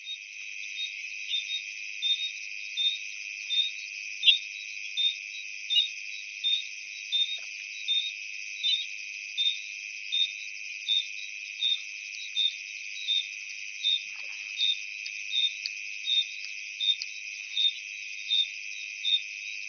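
A chorus of insects: a steady high drone with a short chirp repeating about every three quarters of a second.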